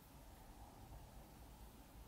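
Near silence: faint, steady room tone with a low hum.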